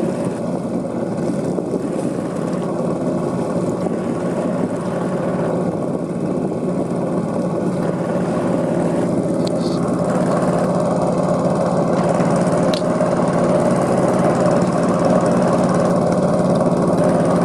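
Engine of a wooden river ferry running steadily under way, its drone growing gradually louder over the last several seconds.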